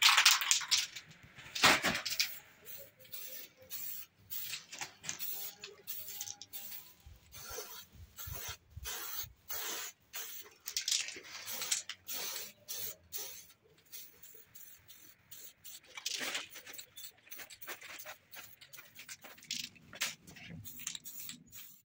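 Aerosol can of gray spray paint hissing in short bursts as it is sprayed onto a metal chair frame.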